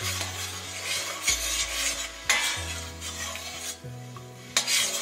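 A metal spoon stirring liquid in a stainless steel pot, in repeated swishing, scraping strokes. There is a sharp clink of spoon on pot a little over two seconds in and another near the end.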